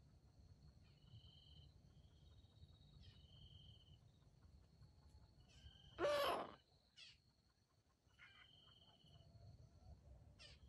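Near the middle, one brief loud call from a red junglefowl. Behind it runs a steady high insect drone, with short whistled notes from small birds.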